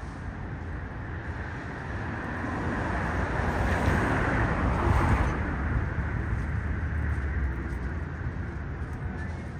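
A vehicle passing by: a rush of road noise over a low rumble swells to a peak about four to five seconds in, then fades.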